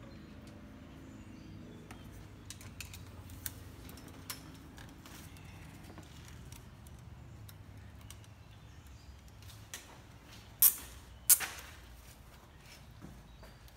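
Hands handling and fitting plastic snorkel tubing on a UTV's roll cage: scattered light clicks and knocks over a low steady hum, with two sharp snaps half a second apart about two-thirds of the way through.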